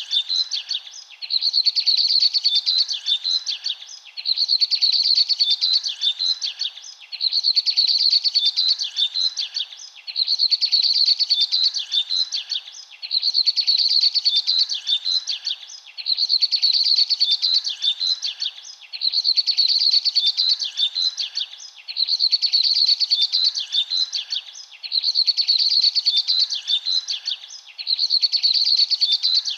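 Birds chirping in quick, dense bouts of high notes about two seconds long, each followed by a short pause, repeating the same way every three seconds like a loop.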